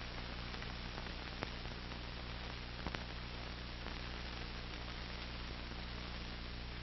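Steady low electrical hum and hiss from a VHS tape transfer, with two faint clicks about one and a half and three seconds in.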